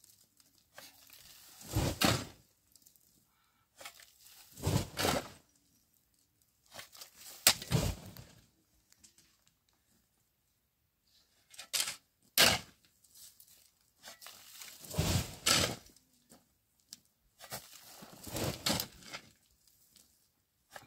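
A long-handled tool scraping and striking gravelly dirt ground in six separate strokes, about one every two to three seconds, with a pause of a few seconds in the middle.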